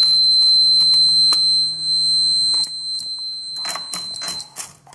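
Small buzzer of a low primer alarm on a Lee Pro 1000 reloading press sounding one steady high-pitched tone: the infrared beam across the empty primer chute is unbroken. Near the end primers rattle down the chute, and the buzzer cuts off suddenly as they block the beam.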